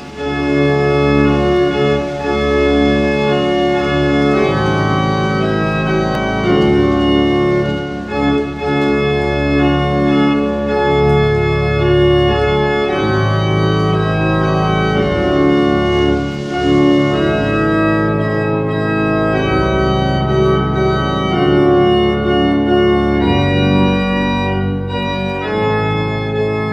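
Church organ playing sustained chords that change every second or two.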